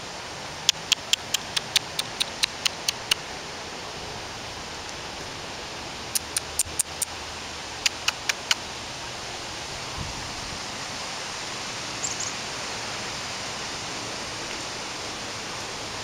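Quick runs of sharp taps, about four to six a second, three runs in the first half, typical of a small bird pecking or hammering on wood, over a steady outdoor hiss. A short high chirp comes about two-thirds of the way through.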